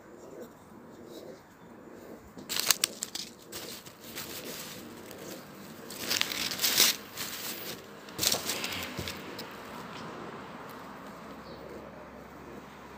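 Plastic packaging of a rapid antigen test kit crinkling and being torn open in three short bursts, about a second each.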